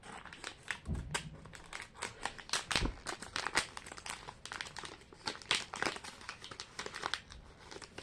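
Small plastic packet crinkling and rustling in the hands as it is opened, with a couple of soft thumps about one and three seconds in.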